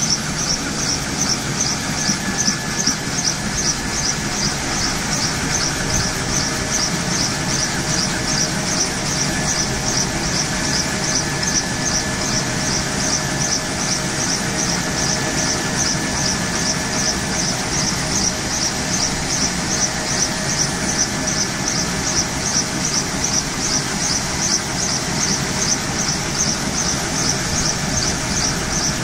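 Kaman K-MAX helicopter's Honeywell T53 turboshaft engine running on the ground with its intermeshing rotors turning. A steady turbine whine sits under a high hiss that pulses evenly about two or three times a second.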